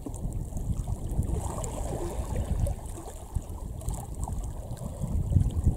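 Wind buffeting the microphone in gusts, over small waves lapping at a stony lakeshore.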